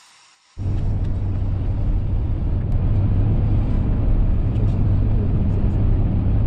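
Steady low rumble of a car driving along a highway, heard from inside the cabin, starting abruptly about half a second in.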